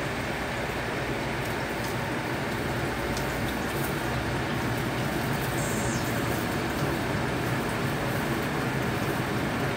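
Steady background noise with a low hum and a few faint light clicks; no speech.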